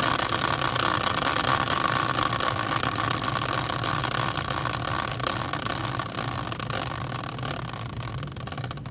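Large caster wheel, hand-spun as a team-picker wheel, spinning freely on its axle in its metal fork bracket. It makes a steady whirring noise that slowly fades as the wheel coasts down, dying away near the end.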